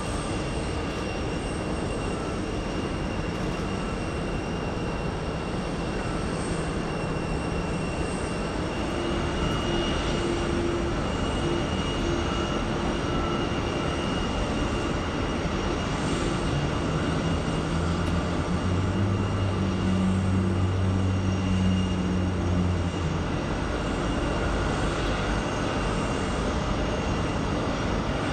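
Jet airliners taxiing on idle thrust: a steady engine rumble with a thin high whine on top. A lower drone swells up about two-thirds of the way through and fades again.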